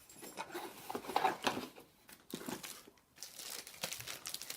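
Packaging crinkling and rustling in irregular bursts as it is handled and pulled open.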